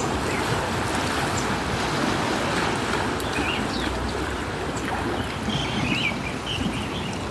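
Sea water washing and surging in a steady rush, with short high chirps now and then.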